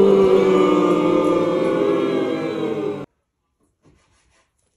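Music: a held, many-layered chord that starts suddenly and cuts off after about three seconds, followed by near silence.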